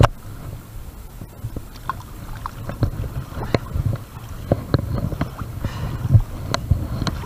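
Low, fluctuating rumble of wind on the microphone, with scattered small clicks and knocks, one sharper knock about six seconds in.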